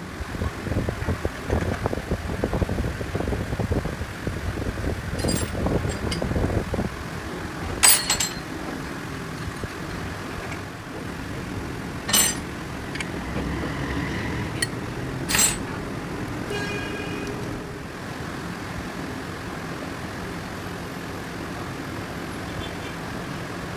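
Metal tools and gear parts clanking at a gear-cutting machine being set up by hand, over a steady workshop hum. The first several seconds hold a rough, uneven clatter, then three sharp clanks come a few seconds apart, followed by a brief ringing tone.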